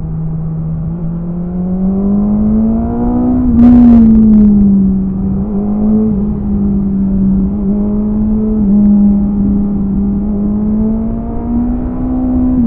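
BMW S1000RR inline-four sportbike engine heard from on board while riding, its pitch climbing gently under throttle, easing back and holding fairly steady, then rising again near the end. A short rush of noise about four seconds in.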